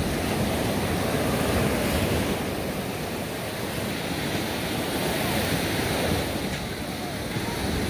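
Ocean surf washing steadily onto a sandy beach, with wind on the microphone.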